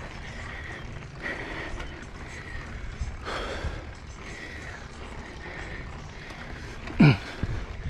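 Mountain biker breathing hard while pedalling uphill, over the steady rolling noise of the bike. About seven seconds in there is one loud exhale falling in pitch, then a couple of low knocks.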